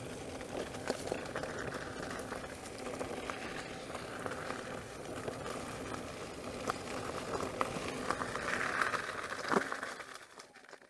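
Veteran Sherman S electric unicycle riding over a rough dirt-and-grass trail: steady tyre and ride noise with frequent small knocks and rattles over bumps, fading out near the end.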